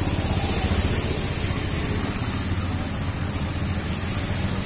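Motorbike and scooter engines running past with tyres swishing through standing floodwater, over a steady hiss.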